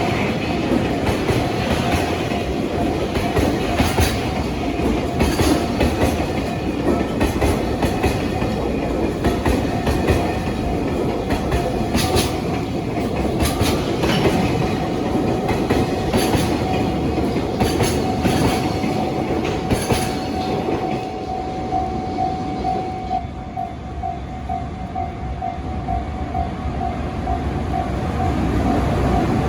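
Container freight train rolling past, wheels clacking over the rail joints about every two seconds, while a railway crossing alarm rings. The train noise fades a little over two-thirds of the way through, leaving the crossing bell ringing.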